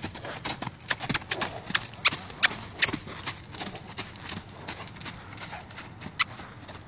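Two-year-old Andalusian filly cantering loose on sand: quick, uneven hoofbeats, thickest in the first three seconds, with a sharper strike about six seconds in.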